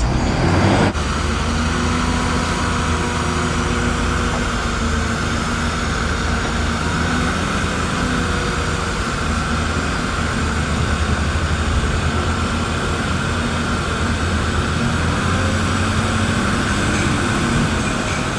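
Heavy diesel earthmoving machinery running steadily: a low engine drone with a constant higher whine above it.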